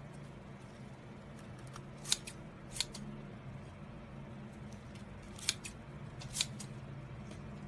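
Kitchen scissors cutting through a thick, glossy jelly-like sheet: four sharp snips of the blades, two close together about two seconds in and two more after five and a half seconds.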